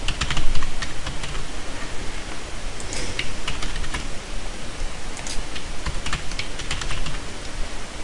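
Computer keyboard typing: irregular clusters of keystrokes over a steady background hiss.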